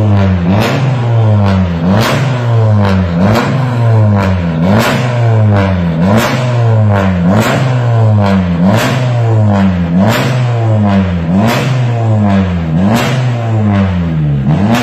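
Modified turbocharged Honda Civic sedan (10th generation) with an aftermarket triple-tip center exhaust, its engine revved again and again: each rev climbs and falls back, about once every second and a half.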